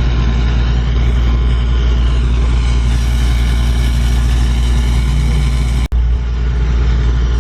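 A motor vehicle engine idling steadily with a deep, even rumble and no revving, cut off for a split second about six seconds in.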